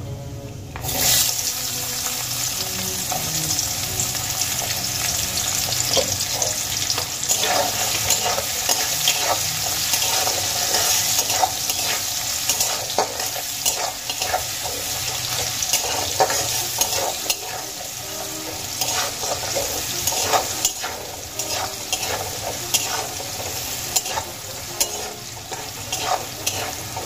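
Chopped onion dropped into hot oil in a metal kadai about a second in, setting off a steady sizzle as it fries. A flat metal spatula stirs and scrapes it against the pan throughout.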